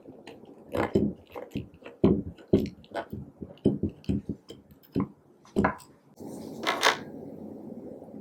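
Slime being kneaded and squished by hand, giving irregular sticky pops and squelches, with a longer squelch about three quarters of the way through.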